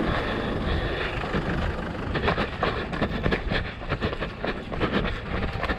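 Wind rumbling on the microphone of a handheld camera. From about two seconds in, a quick irregular series of knocks follows: footsteps and camera handling as the person carrying it runs on a dirt road.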